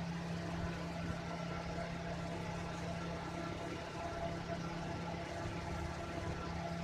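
Steady low hum, even and unchanging, like a motor or fan running in the room.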